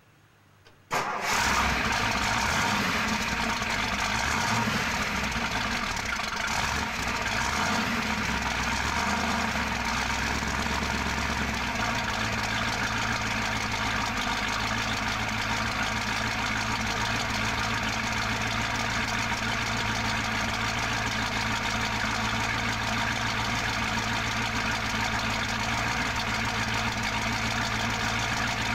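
Ford Starliner's engine cranked by the starter, catching about a second in and running, heard from low behind the car at the exhaust. It runs unevenly at first, then the low note changes and it settles into a steady idle about twelve seconds in.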